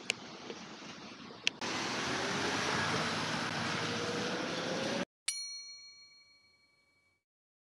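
Steady outdoor street noise with a slowly rising engine-like tone, which cuts off abruptly about five seconds in. A single bright bell-like chime then rings once and fades out over about two seconds against dead silence, a ding laid over the cut.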